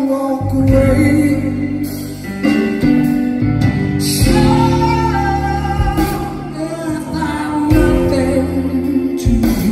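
Live rock music: a man singing held notes over a keyboard and an electric bass guitar.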